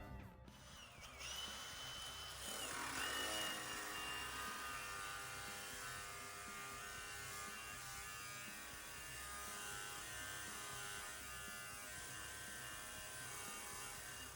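Small power tool whining as it cuts sheet metal out of a rusted-through quarter panel. It speeds up over the first few seconds, then runs steadily and stops abruptly at the end.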